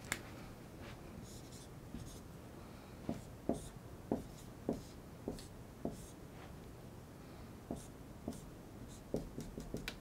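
Dry-erase marker writing on a whiteboard: a run of short, separate strokes, about one every half second through the middle.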